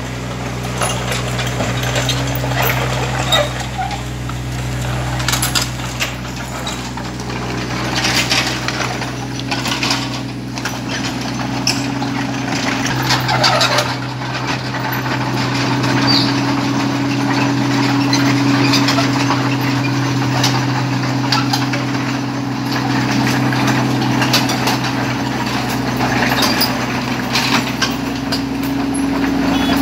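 Yanmar ViO20 mini excavator's diesel engine running steadily as the machine travels on its tracks, with repeated clicking, clanking and squeaking from the undercarriage. The engine hum grows louder in the second half.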